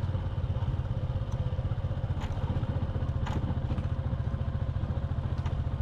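Motorbike engine running steadily while riding along, a low, fast-pulsing rumble, with a few faint clicks.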